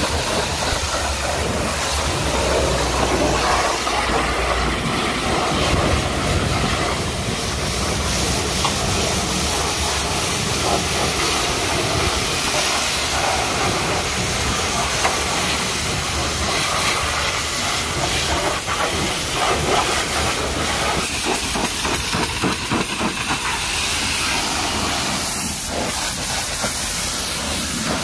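Pressure washer lance blasting a high-pressure water jet onto a truck's chassis and wheel: a steady, loud hiss of spray striking metal and rubber.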